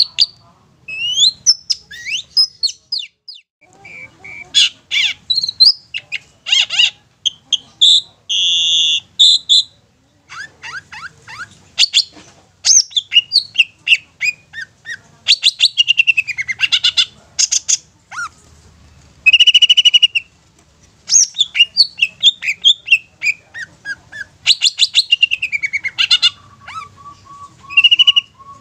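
Long-tailed shrike (cendet) singing a loud, varied song of rapid chattering trills, sharp notes and downward-sweeping calls, broken by a few short held harsh notes. Near the end it gives a row of evenly spaced lower notes.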